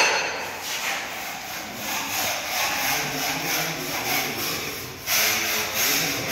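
Rough rubbing, scraping noise that dips away just before five seconds in and comes back louder.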